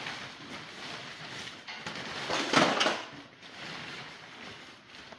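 Rustling of a cover being pulled off a motorbike, loudest in one swish of about half a second near the middle.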